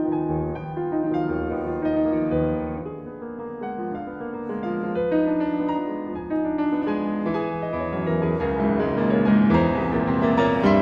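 Background piano music, a run of single notes and chords that grows louder in the second half.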